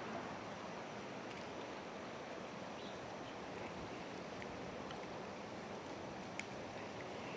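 Steady rush of a high, flowing river, with one faint click about six and a half seconds in.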